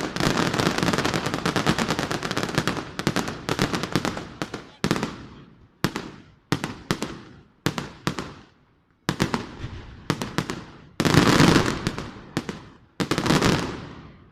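Fireworks display: a dense barrage of rapid cracks and bangs for about three seconds. It breaks into separate salvos of crackling, each dying away, about one every second, and the last stops abruptly at the end.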